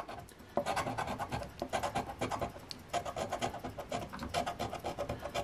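A coin scratching the coating off a scratch-off lottery ticket in quick, short back-and-forth strokes, starting about half a second in.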